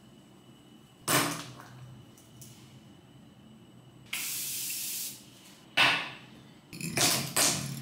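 A spray hissing steadily for about a second, midway through, with short sharp bursts of noise before and after it.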